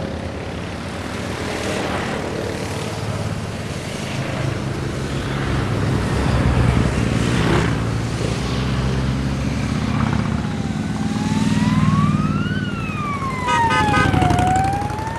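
A convoy of motorcycles passing one after another, engines running, growing louder as each bike goes by. About ten seconds in, a siren starts, wailing slowly up and down, and a quick string of short horn beeps sounds near the end.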